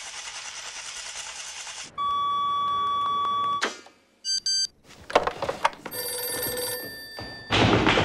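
A string of film sound effects: a steady hiss for about two seconds, then a telephone's electronic ring in several bursts with clicks and knocks around it, and near the end a fast run of flamenco heel-and-toe stamping.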